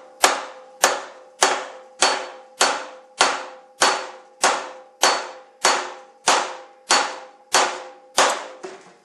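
Hammer striking metal stock in a steady rhythm, about fifteen blows at a little under two a second, each with a clanging ring. The blows are shaping a flare into the metal for a replacement bracket.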